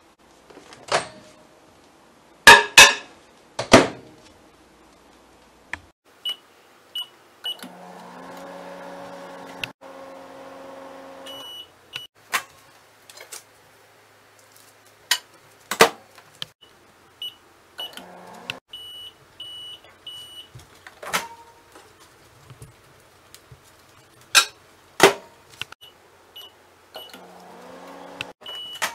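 Microwave oven being used to melt chocolate: sharp clacks of the door latch, high keypad and timer beeps, and several short stretches of the oven running with a steady hum.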